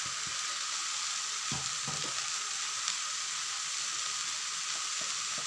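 Kalmi saag and potatoes frying in oil in a kadhai over a low gas flame: a steady, even sizzle, with a few soft knocks of a spoon stirring in salt.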